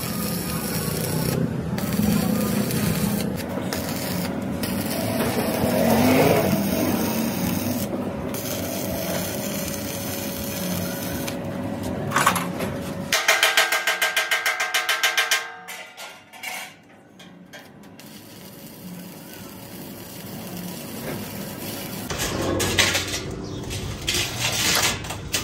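Stick arc welding on a steel air-compressor tank: the steady crackle and hiss of the arc, in several separate stretches. About thirteen seconds in, a loud, fast pulsing buzz lasts about two seconds, then the sound drops lower.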